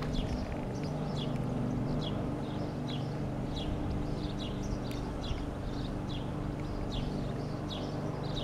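Distant Robinson R44 helicopter giving a steady, low hum, with busy birdsong over it: short, high, falling chirps several times a second.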